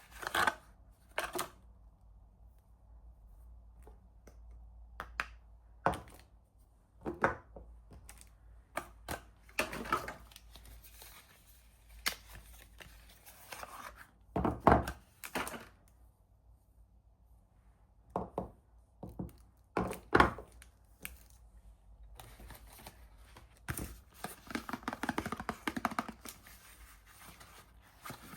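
Soap packaging being handled and opened: wrappers rustling and tearing, with scattered knocks and taps as the bars and boxes are handled. A longer stretch of rustling comes near the end.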